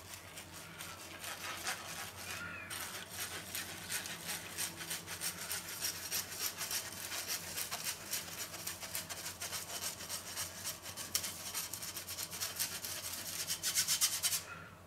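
Metal spoon scraping powdered sugar through a fine wire-mesh sieve, in quick repeated rubbing strokes that grow louder near the end.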